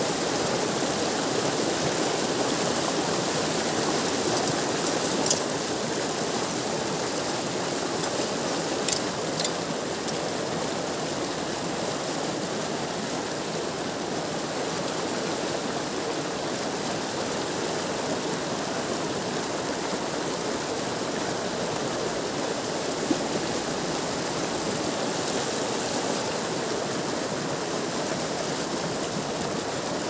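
Steady rush of turbulent water gushing and splashing over stones into a river, with a few brief faint clicks.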